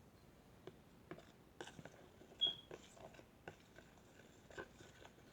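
A mixing utensil stirring glue in a bowl: faint scattered clicks and taps of the utensil against the bowl, with one short high squeak about two and a half seconds in.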